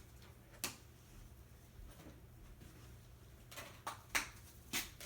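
A few short, sharp handling noises, clicks or rustles, one about half a second in and a quick cluster near the end, over a faint steady low hum.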